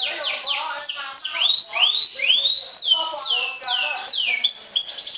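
Canary singing: a series of loud whistled notes that sweep downward, a few rising arched notes about two seconds in, then a rapid trill starting near the end.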